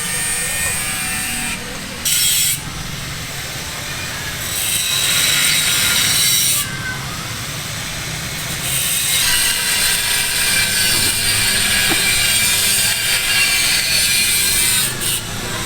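A power tool cutting in several bursts over steady site noise: one brief burst about two seconds in, a longer one around the middle, and a long run through the second half.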